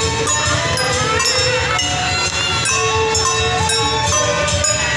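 Traditional Chinese procession ensemble of bowed fiddles and plucked lutes playing a melody, with gliding fiddle notes over a steady light percussion beat.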